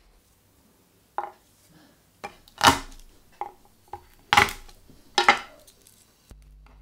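Kitchen knife chopping garlic on a wooden chopping board: about seven irregular, sharp knocks of the blade on the board, the loudest in the middle.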